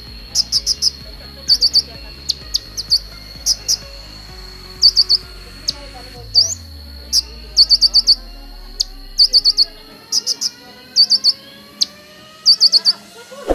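Caged male kolibri ninja (copper-throated sunbird) singing: quick runs of three to six sharp, high chirps, repeated about every second, over a steady high-pitched whine.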